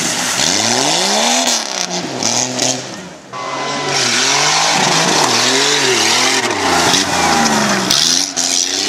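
Off-road trucks' engines revving hard as they power through a mud and dirt course, the pitch climbing and falling again and again. The sound drops away briefly about three seconds in, then comes back at full strength.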